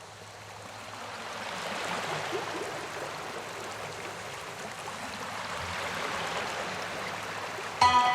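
Rushing water of a cascading waterfall, a steady rush that swells louder over the first couple of seconds. Soft instrumental music comes in suddenly near the end.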